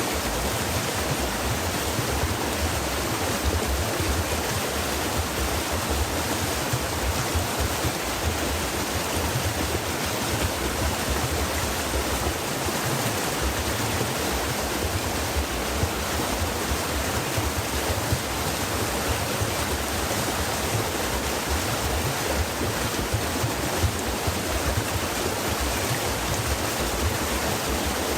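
Stream water flowing and splashing, a steady, even rush.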